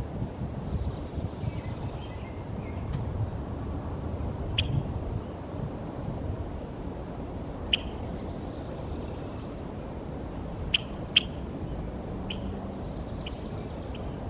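Wild birds calling: a short, high call with a falling tail comes three times, the loudest sounds here, among scattered sharp single chips. Underneath is a steady low rumble of wind on the microphone.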